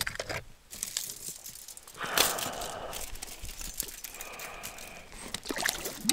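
Handling noises: small metal clicks and rattles, and a rustling burst about two seconds in that fades out over the next few seconds.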